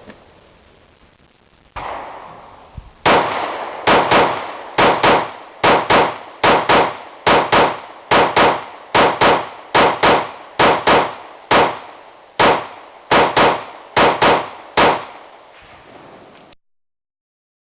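Glock 19C compensated 9mm pistol fired in a long string of double taps: sharp shots in close pairs, about one pair a second.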